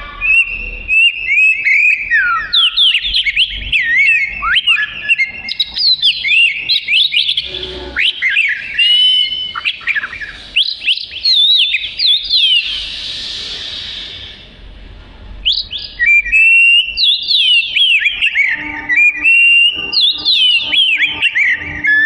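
Oriental magpie-robin singing: a fast, varied run of sweet whistled phrases with quick rising and falling notes. About midway it breaks off into a harsher rasping note and a short lull, then the whistling resumes.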